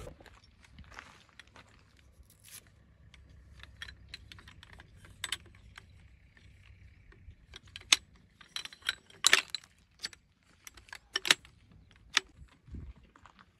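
A run of sharp clicks and clinks from small hard objects being handled, sparse at first and coming thick and loud about eight to eleven seconds in.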